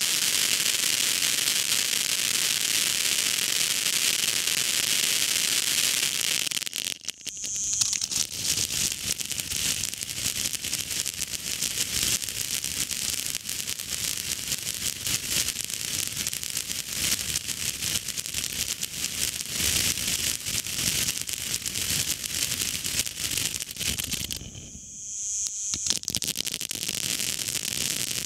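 Firework fountain burning, a steady hiss of its spark jet, with a dense crackle from about eight seconds on. The hiss cuts out briefly twice, about seven and twenty-five seconds in, each time coming back with a fresh burst as the fountain moves to its next effect.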